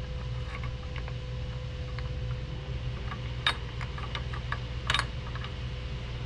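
Light metallic clicks and taps of a CPU cooler's metal mounting bracket being fed through between the heatsink and its base plate, with two sharper clicks in the middle, over a steady low hum.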